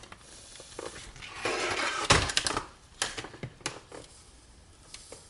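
Handling noises from a laptop's plastic case: a rustle about a second and a half in, a sharp knock about two seconds in, then a few scattered clicks.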